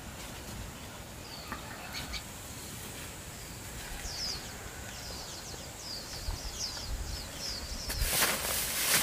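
A small bird chirping in a quick series of short, high, falling notes. Near the end, a burst of scratchy rustling and knocks as a pulled clump of weeds is shaken and knocked to shed soil from its roots.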